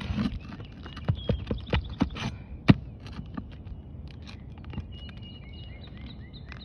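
Irregular sharp knocks and taps of hand tools working on a roof shingle, with a short scrape at the start, as the damaged shingle's nails are pried loose for removal.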